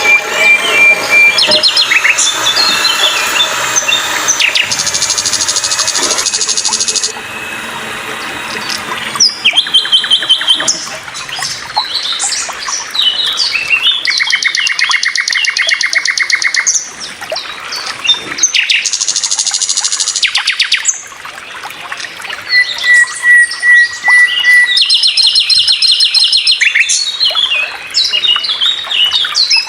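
Several songbirds singing and calling over one another: whistled notes, chirps and fast trills of rapid repeated notes, coming and going throughout.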